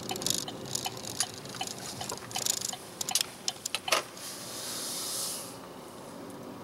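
Car interior sounds while driving: a faint regular ticking about three times a second, with bursts of hiss and a few sharp clicks, then a longer hiss about four seconds in.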